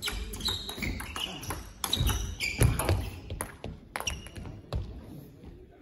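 Table tennis rally: the celluloid ball clicking off the bats and the table in quick, uneven knocks, with heavy thumps about two to three seconds in as the point ends.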